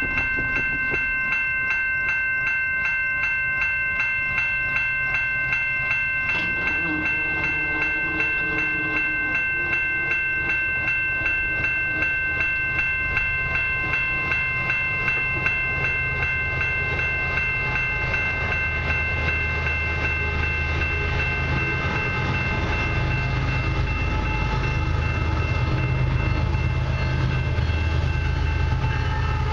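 A warning bell rings steadily, struck about twice a second. From about two-thirds of the way in, the low rumble of the approaching diesel locomotives grows louder beneath it.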